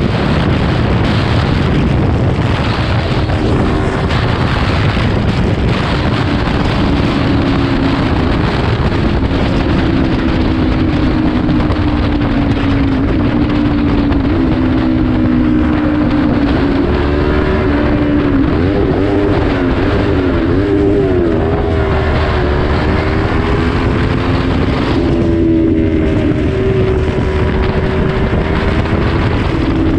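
Kawasaki Ninja 400 parallel-twin engine running at highway speed under heavy wind rush on the microphone. The engine note holds steady for long stretches, then wavers up and down in pitch from about 17 to 22 seconds in as the throttle changes.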